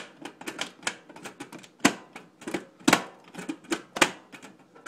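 Crumb-removal door on the underside of a Toastmaster four-slot toaster being worked open by hand: an irregular run of sharp metal clicks and rattles, about three or four a second.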